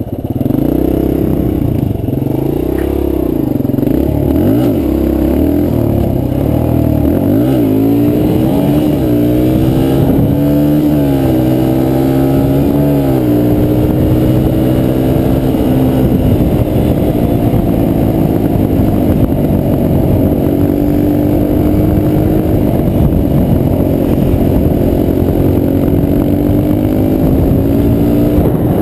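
Dirt bike engine under way, heard from the rider's seat: it revs up and drops back again and again through roughly the first dozen seconds, then runs at a steadier, slowly rising pitch while cruising.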